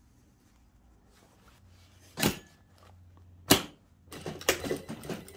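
Industrial lockstitch sewing machine: a low motor hum, two sharp clunks about two and three and a half seconds in, then a run of quick, uneven stitching knocks near the end.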